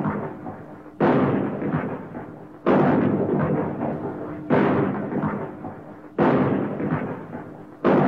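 Shotgun firing five times, about one every 1.7 seconds, each sharp blast followed by a long, echoing decay.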